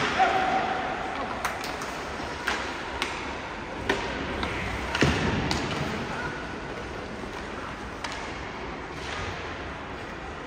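Field ambience at a youth baseball game: a steady background hiss with sharp knocks and clicks scattered irregularly through it, the strongest just after the start and about five seconds in.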